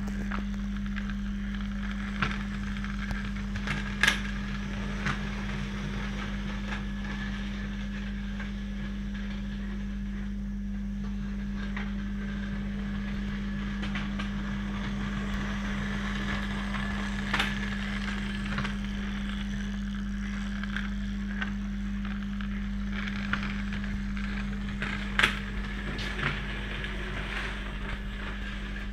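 A 16mm scale narrow-gauge model train running on its track: a steady low hum with scattered light clicks of the wheels and mechanism, and sharper clicks about four seconds in and again about three-quarters of the way through.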